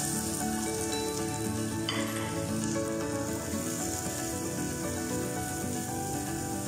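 Chopped garlic and sliced onion sizzling steadily in hot oil in an aluminium pot, stirred with a wooden spoon: the sauté stage, with the onion just added to golden-brown garlic. A background tune plays underneath.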